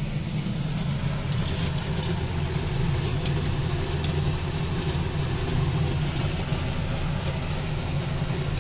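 Bread-and-potato cutlets sizzling as they deep-fry in hot oil in an aluminium kadai, with a few sharper crackles in the first few seconds, over a steady low hum.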